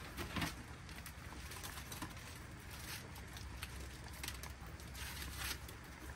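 Light clicks, knocks and rustling as a foil-wrapped rack of ribs is set onto the wire rack of an open Masterbuilt electric smoker, over a low steady background rumble.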